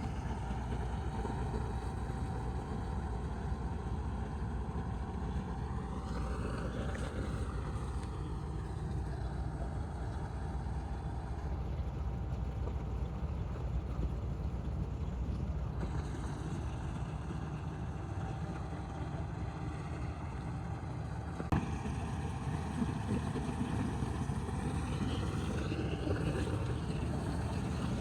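Diesel engine of a farm machine, most likely the combine harvester, running steadily under way with a constant low rumble.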